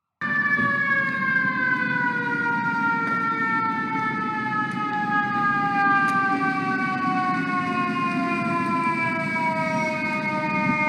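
Fire truck siren sounding one long note that slides slowly down in pitch, over the low rumble of the truck and traffic.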